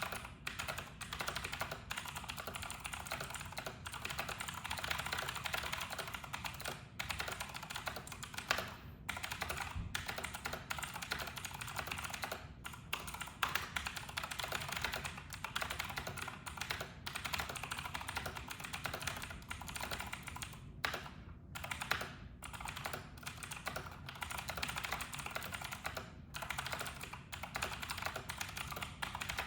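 Steady fast typing on a Razer BlackWidow V4 Pro mechanical keyboard with Razer Green clicky switches: a dense, continuous run of sharp key clicks, broken by a few brief pauses.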